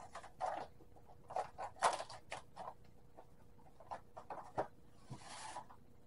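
Plastic pouch of instant nonfat dry milk crinkling and rustling in the hands as it is opened, with irregular crackles and a short hissing rustle about five seconds in.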